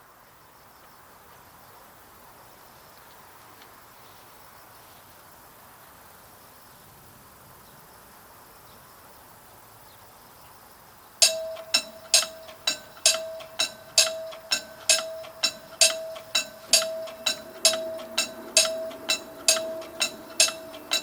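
Faint steady outdoor background, then about eleven seconds in a railroad crossing warning bell starts ringing, about two strikes a second, each a bright ringing tone. It signals that the crossing has activated for an approaching train.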